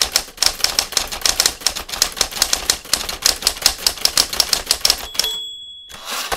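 Manual typewriter typing quickly, keys striking at about eight a second. About five seconds in, the end-of-line bell rings once, followed by a short rushing carriage return.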